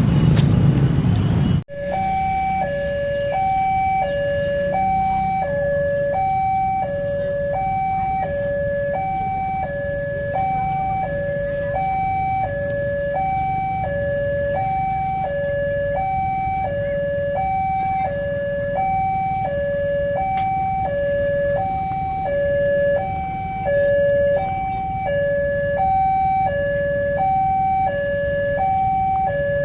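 Electronic two-tone warning alarm sounding steadily, switching between a higher and a lower held tone about every 0.7 seconds, with a low rumble underneath. It starts after a sudden break about two seconds in.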